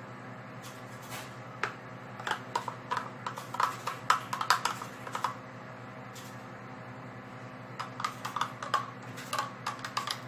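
Thick guacamole being scraped and tipped out of a plastic Magic Bullet blender cup into a bowl: irregular runs of small clicks and taps, in two bouts, over a steady low hum.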